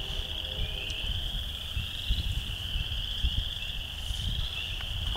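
A steady, high-pitched chorus of frogs calling in the woods, blending into one continuous trilling band, with an uneven low rumble beneath.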